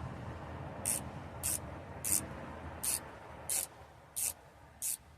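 Sharpened kitchen shears being opened and closed over and over, the blades sliding across each other in about seven short, even hissing strokes.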